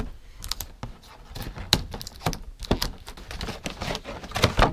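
Scissors cutting along the taped seam of a cardboard box: a rapid, irregular series of clicks and snips. Near the end comes a louder snap as the cardboard flap is pulled open.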